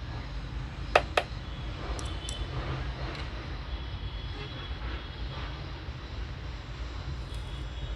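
A steady low drone on the workbench. About a second in there are two sharp clicks close together, then two fainter ticks about a second later.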